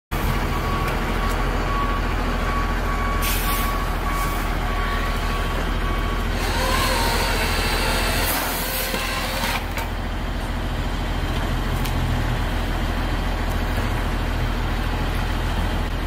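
The engine of a truck-mounted grapple-saw crane runs steadily. For about three seconds in the middle, a higher hissing sound joins it.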